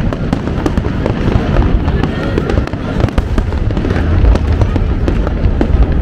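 Aerial fireworks display going off without a break: deep booms in rapid succession with many sharp crackling reports overlapping, over crowd voices.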